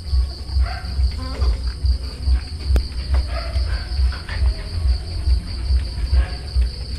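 Crickets chirping steadily, a continuous high pulsing trill, over a low rhythmic thudding that repeats about two or three times a second.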